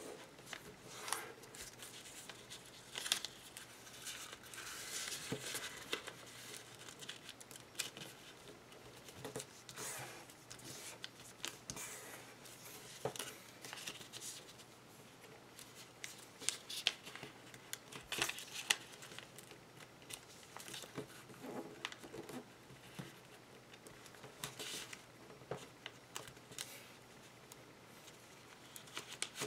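A sheet of origami paper being folded by hand: faint, irregular rustling and crinkling, with scattered sharp crackles as folds are pressed into creases.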